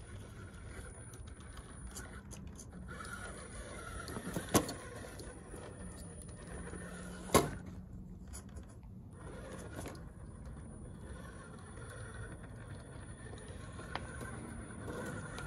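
Element Enduro Sendero RC crawler truck's electric motor and gear drivetrain whirring as it crawls slowly over rocks, with two sharp knocks a few seconds apart as the truck bumps against the rocks, the loudest sounds.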